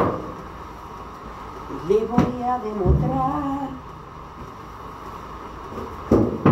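A woman's voice singing a short wordless phrase, its pitch going up and down, from about two seconds in. There is a sharp knock at the start and another, louder one about six seconds in.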